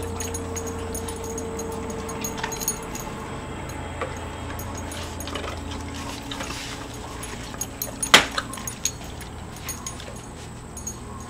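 Dogs crunching ice cubes: scattered short crunches and clicks, with one loud sharp crack about eight seconds in.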